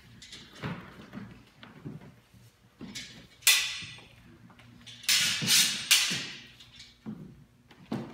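Steel training longswords clashing: a ringing clang about midway, then three more in quick succession a little later, each ringing out briefly. Between the clashes, footsteps thud on a wooden floor.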